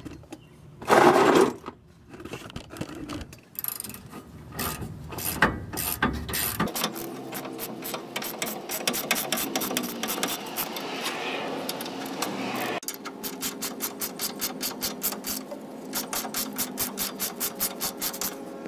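A ratchet wrench with an 18 mm socket ratcheting as the brake caliper bolts are run down tight: fast runs of pawl clicks, swelling about twice a second with the back-and-forth strokes. A loud bump of handling comes about a second in.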